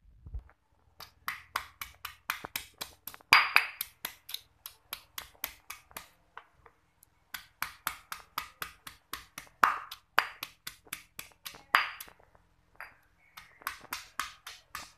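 Stone pestle pounding fresh ginger in a granite mortar (lesung batu): rapid, even knocks at about five a second, pausing briefly twice.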